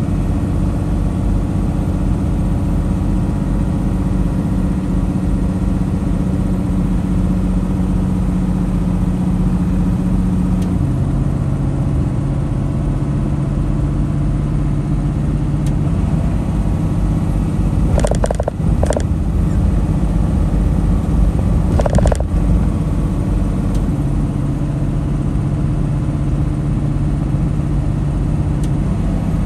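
Semi truck's diesel engine and road noise droning steadily inside the cab at highway speed. The engine note steps down about a third of the way through, and a few brief knocks come about two-thirds of the way in.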